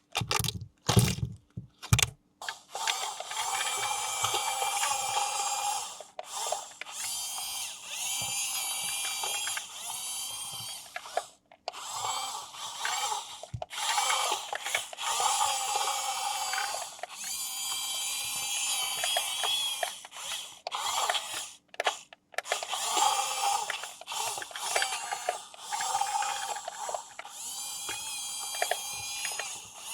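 Small electric motor and plastic gearbox of a remote-control toy whirring in bursts, its whine wavering in pitch as it speeds up and slows, stopping and starting every few seconds. A few sharp knocks come at the start.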